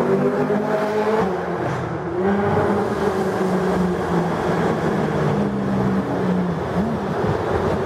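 A sports car's engine running, its note rising and falling with the revs, with a quick blip of the throttle near the end.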